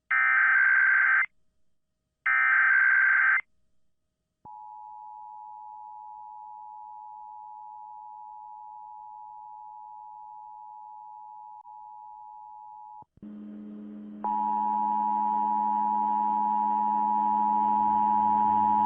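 Emergency Alert System alert as aired on AM radio: two short raspy bursts of SAME header data, then the steady two-tone attention signal (853 and 960 Hz). About two-thirds through, a hum and static come in and the attention tone continues louder. It is the opening of a monthly test of the alert system.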